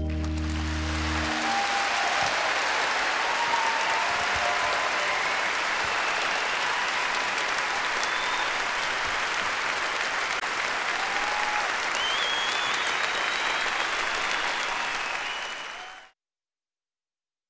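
Audience applauding, with a few short cries rising and falling above the clapping, as the last sustained notes of a song die away about a second in. The applause cuts off abruptly near the end.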